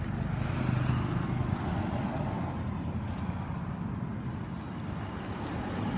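A vehicle engine running steadily, a low, even rumble.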